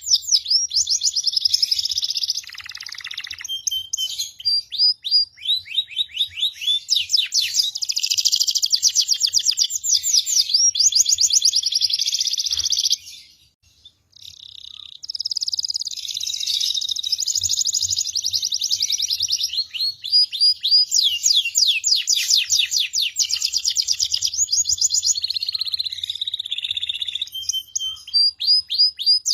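Songbirds singing loud fast rolling trills and chirping runs of rapidly repeated high sweeping notes, a kapas tembak and a domestic canary. The song breaks off briefly near the middle, then resumes.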